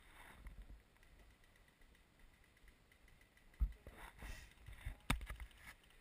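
Faint, scattered knocks and rustles, with low thumps a few seconds in and one sharp click near the end.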